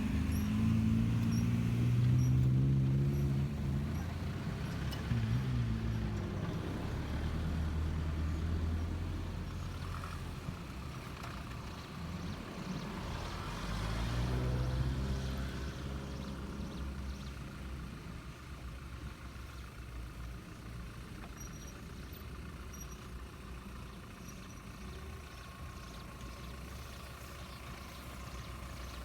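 An off-road 4x4's engine revs up and eases off several times, then settles into a steadier, lower running sound that grows fainter.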